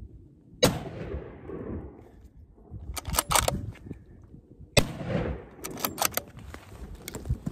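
Two shots from a scoped bolt-action hunting rifle, about four seconds apart, each followed by a fading echo. A few quick metallic clicks follow each shot as the bolt is cycled.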